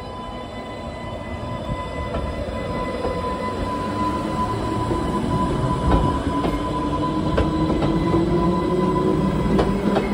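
Island Line Class 484 electric multiple unit running past close by, growing louder, with a whine that rises in pitch over its last half. A few sharp clicks from the wheels and rails come as the cars pass.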